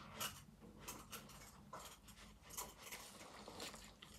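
Faint, scattered rustles and light clicks of a vest and belt being adjusted, over a low steady room hum.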